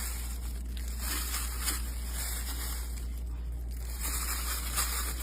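Steady crackling sizzle of food frying in oil, over a constant low hum.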